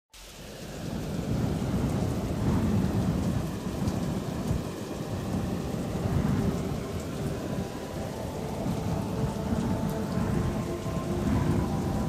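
Rain with low, rolling rumbles like thunder, fading in at the start. Held music notes come in about eight seconds in.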